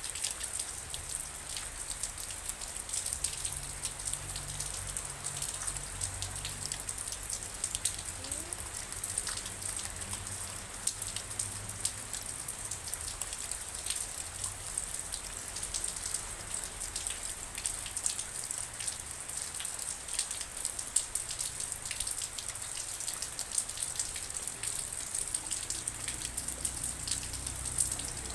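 Steady rain with dense patter of individual drops striking a surface, under a faint low rumble.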